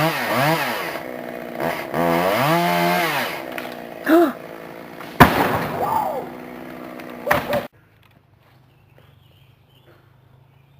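Chainsaw engine revving up and down in pitch, with a sharp knock about five seconds in. It stops abruptly at about eight seconds, leaving a faint low hum.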